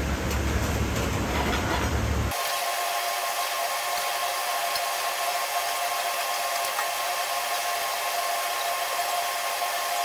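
Steady rushing kitchen noise from a lit gas burner and kitchen ventilation, with a faint even hum in it. About two seconds in, the deep rumble underneath drops out abruptly.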